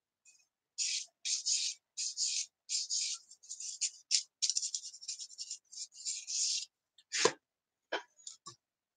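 A sanding stick rubbed over a small plastic model-kit part in short, quick strokes, about two a second, stopping about two-thirds of the way through. Near the end come three or four light knocks.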